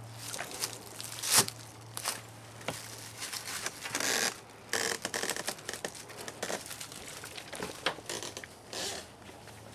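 Crunching, scraping and rustling of someone moving through debris, with scattered clicks, a sharp knock about a second and a half in, and two longer rustling bursts near the middle.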